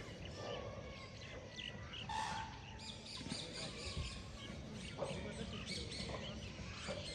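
Many small birds chirping and calling over one another in quick, overlapping short notes.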